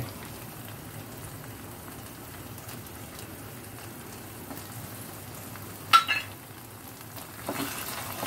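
Tomato purée and spice paste frying in oil in a pan, a steady sizzle. About six seconds in comes a single sharp metallic clink, the loudest sound.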